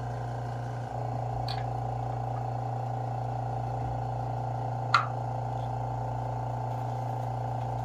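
Steady electric hum of the vacuum pump holding the suction-cup seam setters on the quartz countertop seam. It rises slightly about a second in. A light click comes a little later and a sharper click about five seconds in, from the clamps and seam-setter knobs being worked.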